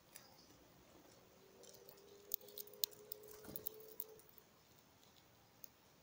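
Great tit at a wooden seed-filled bird table: a short run of sharp clicks and taps from its beak and claws on seed and wood, about two to four seconds in.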